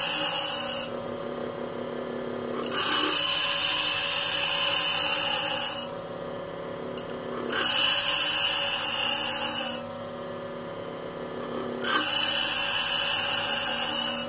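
Vevor 8-inch variable-speed bench grinder at its lowest speed, with a high-speed steel drill bit pressed hard against the wheel. The grinding comes in four loud passes of two to three seconds: one ending about a second in, then three more, with the motor running quietly between them. The wheel is not slowing down that much under the load, a sign of what appears to be its feedback speed control.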